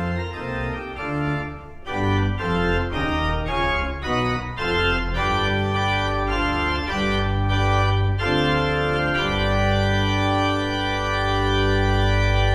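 Church organ playing the postlude that closes the service. Quick-moving notes over a deep pedal bass give way to slower sustained chords, ending on a long held full chord.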